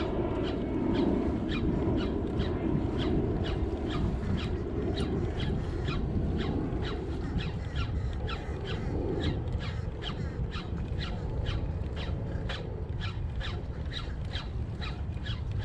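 Daiwa BG 3000 spinning reel being cranked steadily to retrieve a lure, giving a regular click about three times a second over a steady low rush of wind and water.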